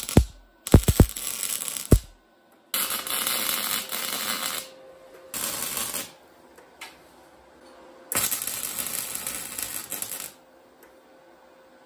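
MIG welding arc crackling and spitting in four short runs, stopping and starting again, as beads are laid on a steel frame. The first run has a few sharp knocks in it.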